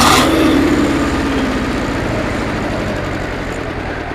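Escorts 335 tractor's three-cylinder diesel engine settling from a rev back toward idle, its sound dying away steadily.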